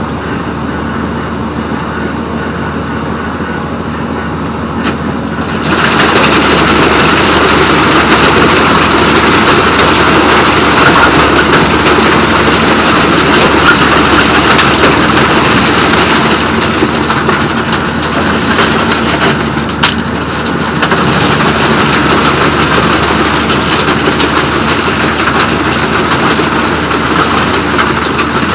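Laimet HP 25 tractor-driven wood chipper running steadily, then about six seconds in branches start going through and the sound jumps to a loud, dense chipping noise that carries on with a short lull near twenty seconds.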